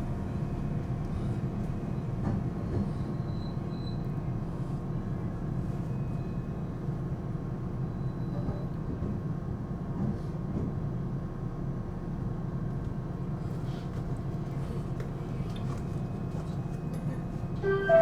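Electric multiple-unit train running at reduced speed, a steady low rumble of wheels on rail heard from inside the car with faint motor tones over it.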